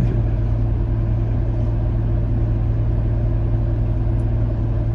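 Vehicle engine idling steadily, off the accelerator, heard from inside the vehicle.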